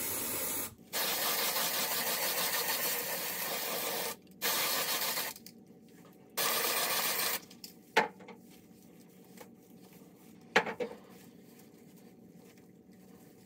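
Aerosol can of green temporary hair-colour spray hissing in bursts: a short one, a long spray of about three seconds, then two of about a second each. Two sharp clicks follow in the second half.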